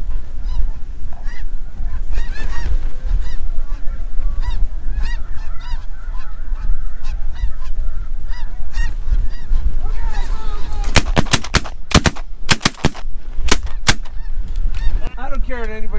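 A large flock of snow geese calling constantly as it circles low overhead. About eleven seconds in, several hunters open fire with shotguns: a rapid volley of about ten shots over some three seconds. Goose calls pick up again near the end.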